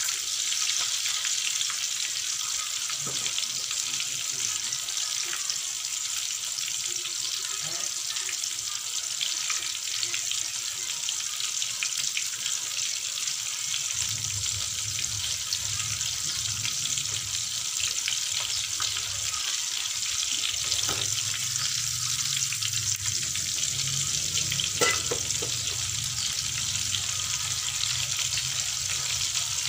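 Tomato pieces frying in hot oil in an aluminium wok, a steady sizzle as they cook down until soft, stirred with a perforated metal spatula at first. A low hum joins about halfway through, and there is one sharp click near the end.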